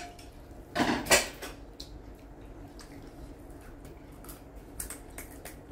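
Tableware and eating sounds: a louder, noisy clatter or crunch about a second in, then scattered soft clicks and taps of spoons against bowls while crisp pani puri shells are handled.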